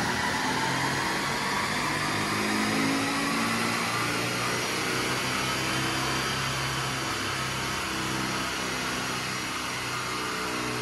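Mercedes E220 CDI's four-cylinder turbodiesel running on a rolling-road dynamometer, its tyres spinning the rollers at speed: a loud, steady rushing noise, rising a little in pitch at first.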